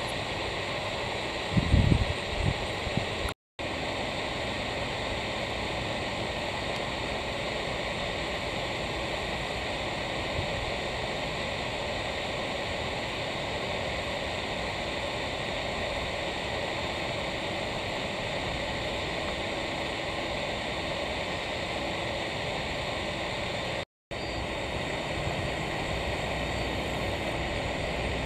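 Steady, hissing jet aircraft noise heard from a distance at an airport, with a brief low rumble about two seconds in. The sound drops out twice for a split second.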